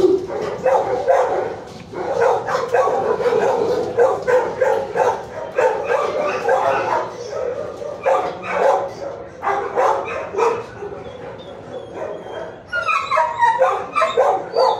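Dogs in shelter kennels barking and yipping, the barks coming thick and overlapping, with a falling whine near the end.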